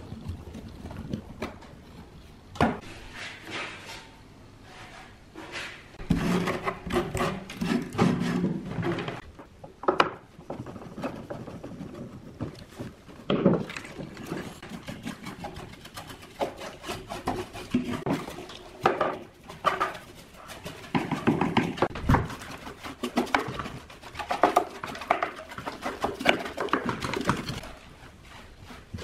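Hands handling small speaker parts on a wooden workbench: irregular knocks, clicks and scrapes of metal and wood, in bunches with short quieter gaps.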